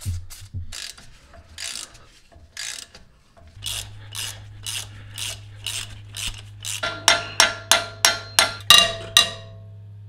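An aerosol can of penetrating oil sprayed in several short bursts, then a socket ratchet clicking in steady strokes as the wheel hub bolts are worked loose. The clicks get louder and faster in the last few seconds, with a ringing metal edge. A steady low hum comes in about a third of the way through.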